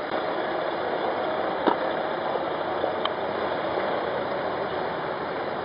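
Engines of a column of police motorcycles running at low speed as they pull away together, a steady mix of engine and traffic noise. A sharp click stands out about a second and a half in, a smaller one about three seconds in.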